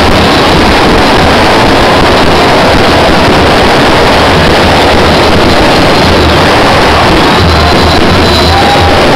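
A dense mass of football supporters chanting together, very loud and unbroken, overloading the microphone.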